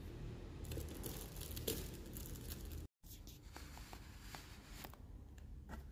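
A cardboard cake box being handled: soft rustling with scattered light clicks and taps. The sound cuts out completely for a moment about halfway through.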